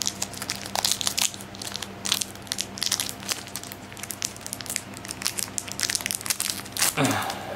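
Foil wrapper of a Pokémon booster pack being torn open and crinkled by hand: a dense run of irregular crackles and rustles.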